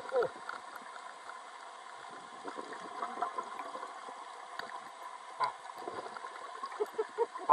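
Faint underwater ambience heard through a camera housing at depth: a soft, even crackle with scattered small clicks and one sharper click about five and a half seconds in, and a few short gurgling blips near the end.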